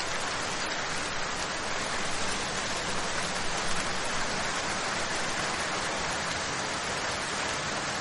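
Steady, even hiss like static, with no distinct clicks or knocks.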